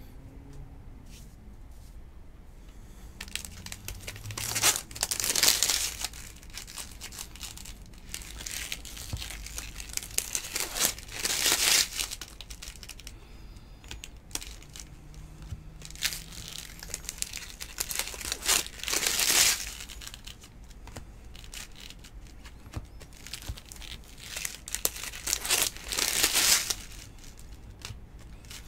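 Foil wrapper of a Topps baseball card pack being crinkled and torn open by hand, with the cards slid through in between. Four louder bursts of crinkling come several seconds apart.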